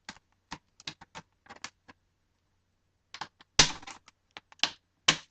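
Plastic pry tool working under a laptop's plastic screen bezel: a run of small plastic clicks and snaps as the bezel's clips pop loose, the loudest about three and a half seconds in.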